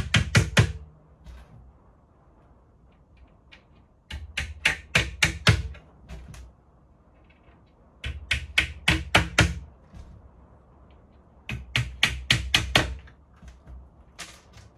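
Hammer tapping small nails into the hardboard back panel of a flat-pack cabinet, in four bursts of quick strikes, about six a second.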